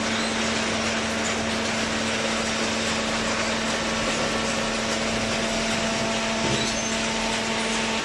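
Cardboard baler running, a steady machine noise with a constant low hum.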